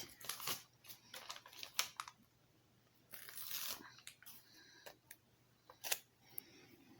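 Soft clicks and taps of LEGO pieces and a paper sticker sheet being handled, with a brief rustle or peel about three seconds in as a sticker comes off the sheet.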